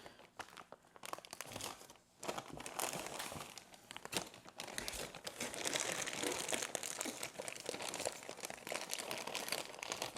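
Rustling and crinkling with many small crackles and clicks, sparse at first, then denser and steady from about two seconds in.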